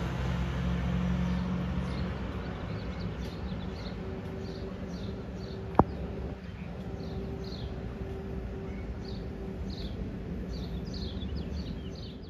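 A Pierce Arrow XT fire engine's diesel engine rumbling as it drives away, fading after the first couple of seconds into general street noise. Small birds chirp repeatedly throughout. A single sharp click comes about six seconds in.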